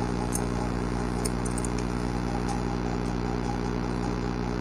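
Barber's scissors snipping hair, a few faint high clicks in the first three seconds, over a loud steady low hum.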